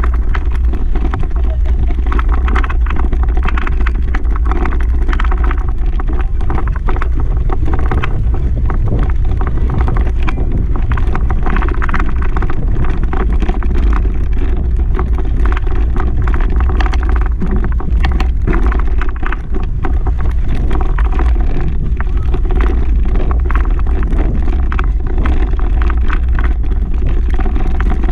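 Steady low wind rumble on the microphone of a moving mountain bike, with the bike rattling and clicking over a rough grassy track.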